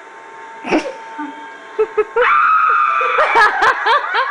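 A thump about a second in, then a high voice holds a scream on one pitch for nearly a second and breaks into a run of quick short laughs, heard through a TV speaker.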